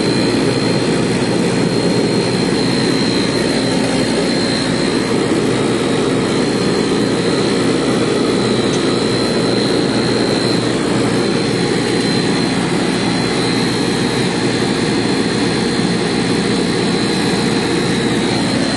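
Loud, steady drone of running machinery with a thin, high, steady whine through it.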